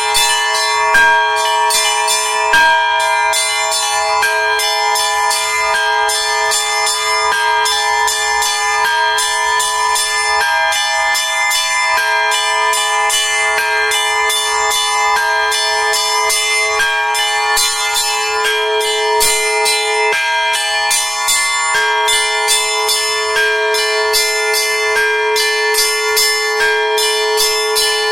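Orthodox church bells rung in a continuous peal. Smaller bells are struck rapidly, several strikes a second, over a lower bell that keeps ringing throughout.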